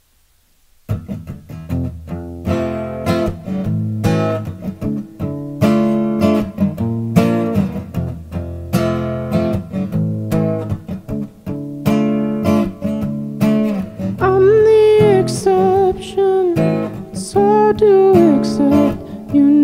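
Acoustic guitar strummed in rhythmic chords, starting about a second in after a moment of near silence. A man's singing voice joins over the guitar near the end.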